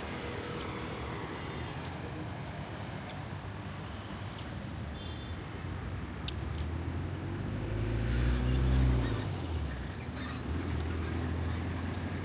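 Street traffic with a motor vehicle's engine passing close, growing louder from about seven seconds in, loudest around nine seconds, then fading, with another engine following near the end.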